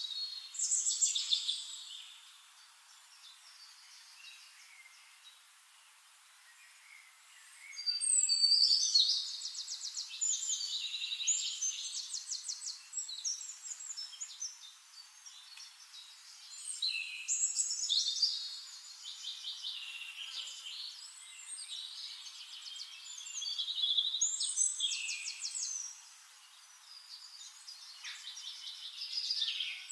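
A songbird singing phrases of rapid trills and chirps, with a loud burst of song every several seconds and quieter chirping between.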